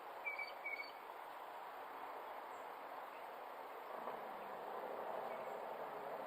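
Steady hiss of outdoor ambience picked up by a game camera, with two short high chirps in quick succession near the start.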